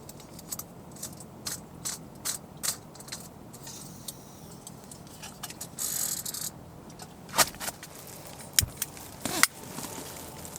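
Light metallic clicks and clinks of small camp cookware being handled, with a brief hiss about six seconds in and a few louder knocks near the end.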